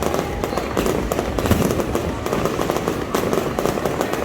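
Fireworks going off in a rapid, continuous crackle of pops and bangs, with a heavier boom about a second and a half in.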